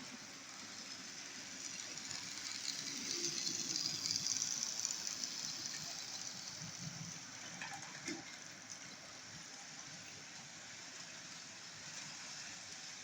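Hornby class 56 model locomotive running on the layout track, a faint hiss and rumble that grows louder to a peak a few seconds in, then fades as it moves away. A small click comes about eight seconds in.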